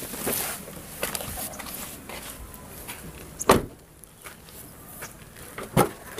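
Toyota Fortuner's door shut with a single solid thud about halfway through. Near the end comes a sharp click from the rear door handle and latch as the rear door is opened.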